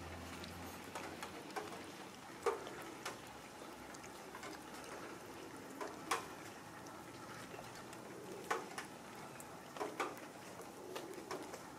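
Cats eating wet food from plastic trays: scattered sharp chewing and smacking clicks a second or two apart over a faint steady background.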